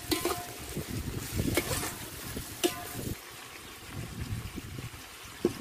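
Onions, tomatoes and green chillies frying in oil in a large aluminium pot, stirred with a metal slotted ladle that scrapes through the mixture and knocks against the pot about four times.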